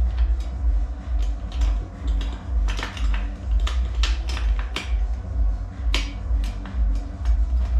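Background music: a steady pulsing bass line with a sharp finger-snap beat, about three snaps a second.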